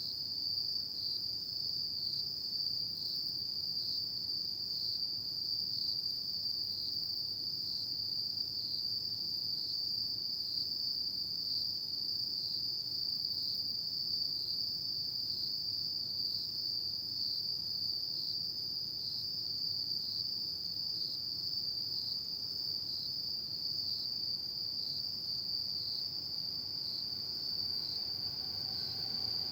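Autumn night insects chirping in one continuous high trill, with a slight regular pulsing about once a second. A faint lower tone joins in near the end.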